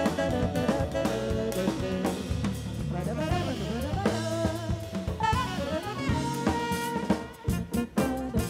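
Live jazz band playing: a woman singing over saxophone, electric bass and drum kit. Near the end the music thins and sharp drum hits stand out.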